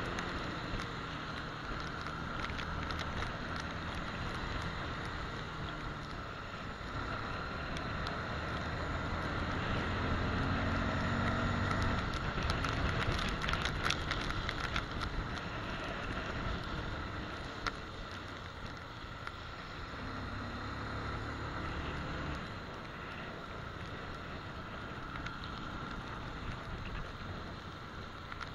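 Motorcycle riding on a rain-soaked road: its engine running, the note building and easing with the throttle, over a steady hiss of tyres on wet tarmac and wind on the microphone. A few sharp ticks in the middle.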